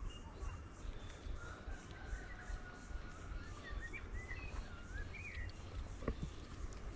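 Bush ambience: a bird gives several short whistled calls that glide up and down in the middle, over a faint high insect pulsing about three times a second and a low rumble of wind on the microphone.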